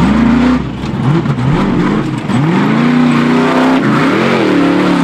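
Off-road race vehicle's engine revving hard and accelerating, its pitch climbing and dropping back several times as it shifts up.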